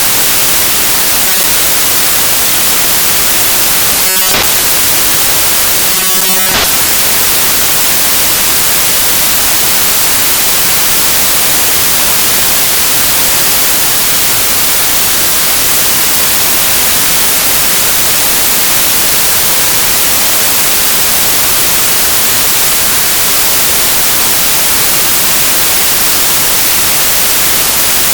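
Loud, steady static hiss like white noise, with two brief sounds breaking through about four and six seconds in.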